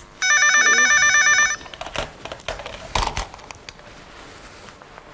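Electronic office telephone ringing once, a warbling trill lasting a little over a second, followed by a few faint clicks and knocks.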